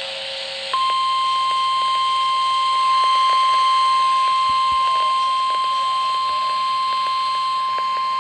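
NOAA Weather Radio's 1050 Hz warning alarm tone: one steady, unbroken high beep that starts under a second in, after a brief lower tone, heard over a radio receiver's faint hiss and crackle. The tone signals that an emergency weather alert is about to be read.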